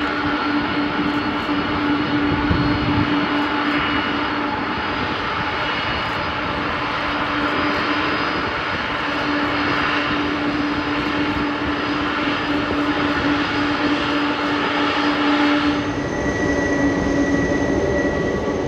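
Boeing 747-400 Dreamlifter's four jet engines running at taxi power: a steady drone with a held low hum. About sixteen seconds in the sound changes abruptly and a higher steady whine comes in.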